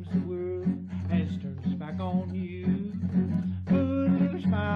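Acoustic guitar and autoharp playing an old-time country tune with a steady strummed beat.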